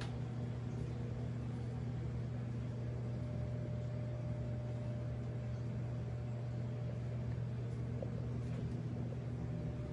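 Reef aquarium equipment running: a steady low mains hum from the pumps, with an even hiss over it.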